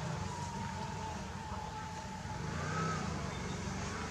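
Steady low background rumble, like an engine or traffic running, with a few faint wavering high tones.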